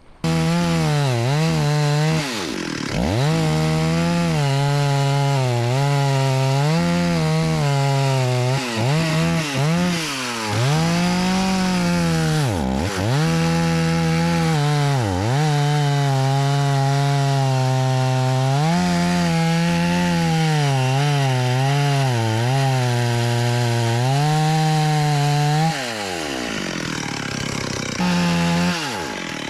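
Two-stroke chainsaw running at high revs while cutting wood. Several times the engine drops back in pitch toward idle and then revs up again.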